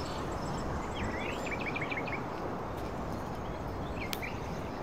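Woodland birds calling over a steady background rush: a quick run of about six short chirps about a second and a half in, and a couple more calls near the end.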